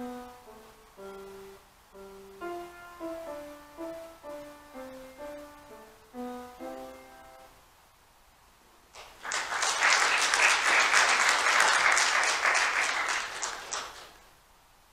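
Piano playing a slow passage of notes that each ring and die away, stopping about seven and a half seconds in. Then people applaud for about five seconds, louder than the music, before it fades away.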